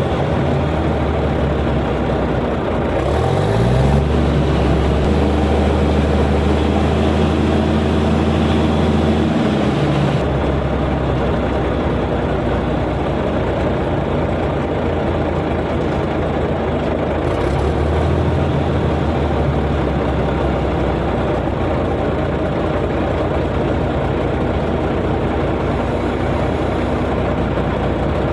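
Komatsu bulldozer's diesel engine running, revved up about three seconds in and held at a higher speed, then dropping back to a lower speed about ten seconds in; it picks up briefly again later.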